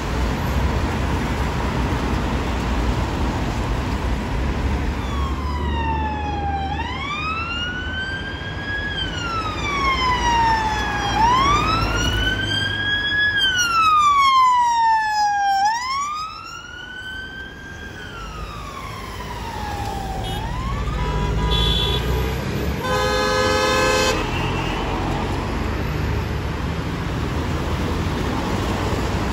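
UK police car siren on a slow wail: about three rising-and-falling sweeps, loudest as the car passes close, then fading. Near the end comes a short blast of the siren's bullhorn tone, over a steady rumble of traffic.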